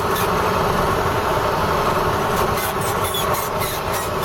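KAMAZ fuel tanker truck's diesel engine running steadily under way, heard from inside the cab, with faint rattling over the drone.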